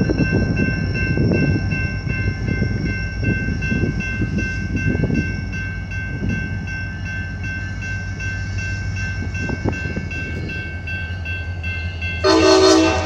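CSX SD40-3 diesel locomotive running with a steady low rumble, a high steady whine held over it, and a short, loud blast of its air horn about twelve seconds in.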